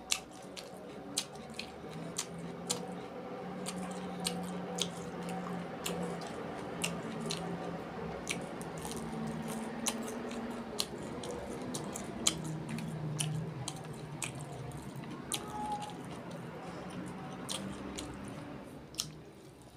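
Close-up chewing and wet mouth sounds of a person eating rice and curry by hand, with frequent sharp smacks and clicks.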